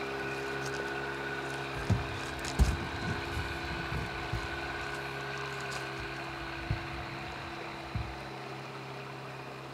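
An 8 hp Mercury long-shaft outboard motor running at a steady speed as it pushes a loaded pontoon boat across the water, slowly fading as the boat moves off. A few short low thumps come through over the motor.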